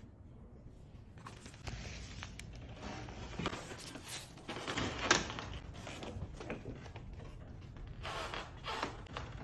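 Hand-operated letterpress printing press being worked: a run of irregular mechanical knocks and clacks, the loudest about five seconds in.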